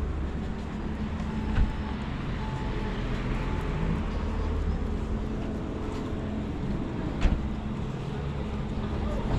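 Outdoor street ambience: a steady low rumble of traffic, with two sharp knocks, one about one and a half seconds in and one about seven seconds in.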